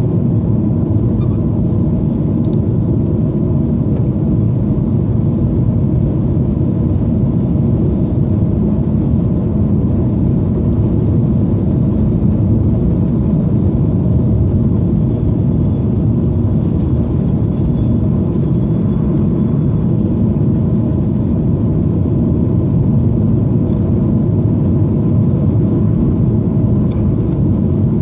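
Steady low rumble of road and engine noise from a car driving along, heard from inside the moving car.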